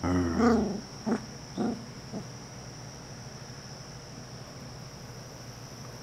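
A very young puppy vocalising: a wavering growl-whine in the first second, then three short yips about half a second apart.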